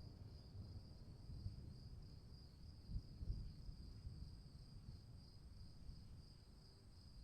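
Crickets chirring steadily in one even high band, over a faint low rumble that swells briefly about three seconds in.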